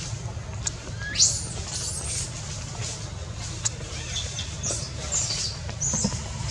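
Baby long-tailed macaque giving short high-pitched squeaks: one loud rising squeal about a second in, then a cluster of brief calls near the end. A steady low rumble runs underneath.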